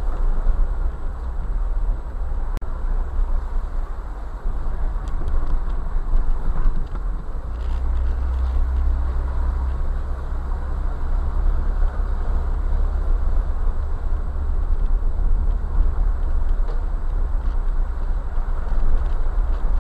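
Jeep driving slowly over a gravel wash, heard from inside the cab: a steady low engine and road rumble with tyres rolling on gravel. The rumble grows deeper and stronger for a few seconds midway.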